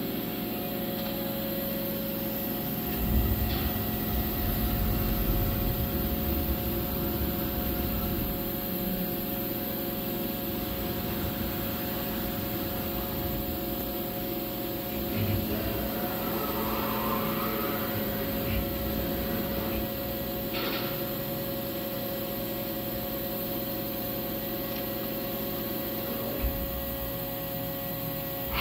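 Haas Mini Mill CNC vertical machining center running under power, with a steady electrical hum and whine as its axes move the table and spindle head. Stretches of low rumble come and go, and a whine rises and falls about halfway through.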